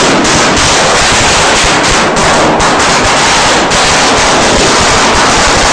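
A string of red firecrackers going off at close range: a dense, unbroken rapid-fire run of sharp bangs, very loud.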